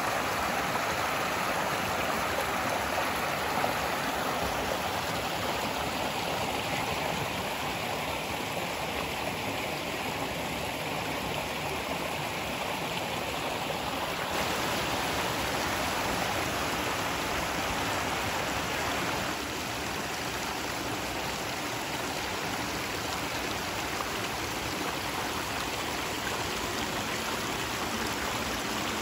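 Shallow rocky mountain stream running over boulders and pebbles in small cascades: a steady rush of water, its tone changing slightly twice.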